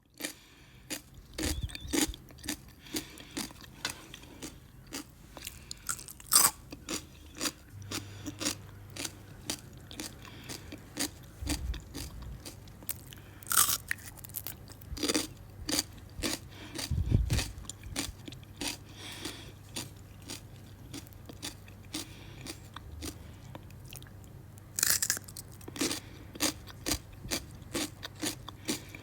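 A person biting into and chewing crunchy fruit: a steady run of short crunches about one or two a second, with a few louder bites among them. A faint low hum comes in about eight seconds in.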